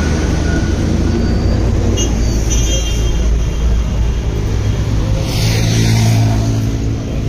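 A motor vehicle's engine running close by, a low steady hum that swells about five seconds in as it comes nearer, with a short rush of higher noise at the same time.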